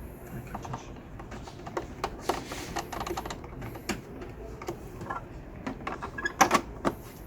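Irregular light clicks and plastic knocks from hands working the printer's ink-refill tank and parts, with a sharper pair of clicks about six and a half seconds in.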